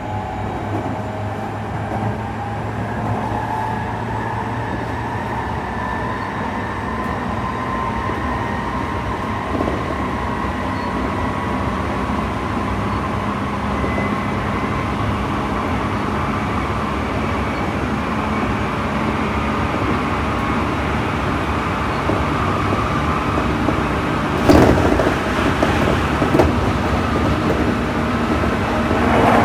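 Tsukuba Express TX-2000 series electric train heard from inside the car while running between stations: a steady rumble of wheels and rails with a faint motor whine that slowly rises in pitch. A sharp knock comes about 25 seconds in, with a lighter one a second or so later.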